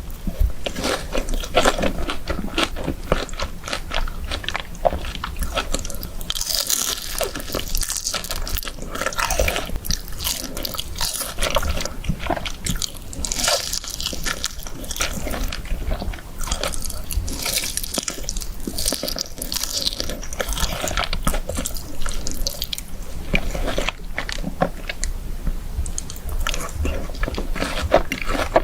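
Close-miked eating of fried chicken with cheese sauce and rice: irregular crunching bites into crispy fried chicken and wet chewing, with several louder crunchy bites along the way.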